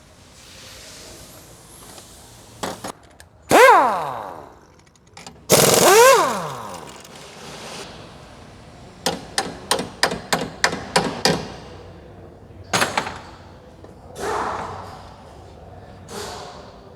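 Metal hand tools and steel suspension parts clanking while a car's front suspension is taken apart. There are two loud, ringing metal clanks, then a quick run of about nine sharp clicks at roughly four a second, and a few more knocks near the end.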